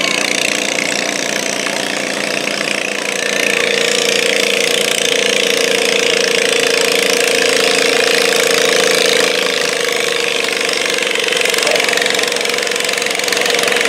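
Modified garden pulling tractor's engine running hard under load while dragging a weight-transfer sled; its steady note gets louder about three seconds in and eases slightly about nine seconds in.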